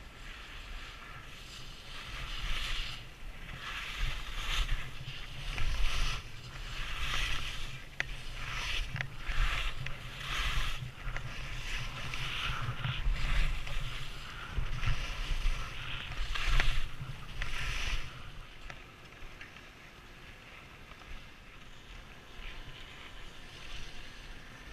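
Skis carving across packed snow in a run of quick turns, each turn a rising and falling scrape-hiss about once a second, with wind rumbling on the camera's microphone. The turns stop a little over two thirds of the way in, leaving a quieter steady hiss as the skier slows.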